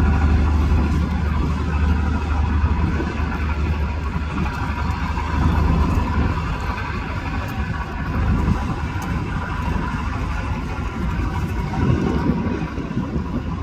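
Steady low rumble with continuous outdoor background noise and a faint steady hum.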